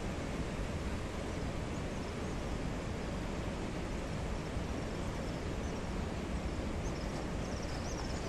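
Steady rushing noise, even and unbroken, with small birds chirping in short high calls during the last couple of seconds.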